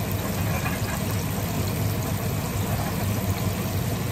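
Breaded pork chops frying in a skillet of hot oil, sizzling and bubbling steadily, with a steady low hum underneath.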